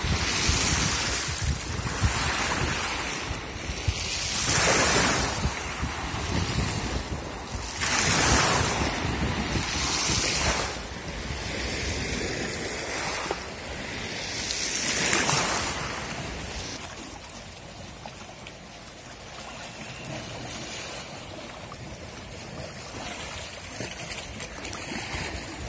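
Small sea waves washing up over a pebble beach, surging every two to three seconds; in the second half the surf is softer and steadier.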